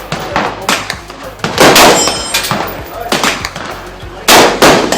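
Gunshots echoing at an outdoor shooting range: two loud shots in quick succession about a second and a half in, and two more near the end, with fainter shots in between.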